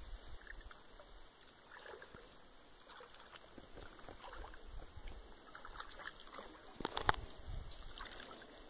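Water dripping and sloshing softly as a wet cast net and its rope are gathered up by hand in waist-deep river water, with a sharper knock about seven seconds in.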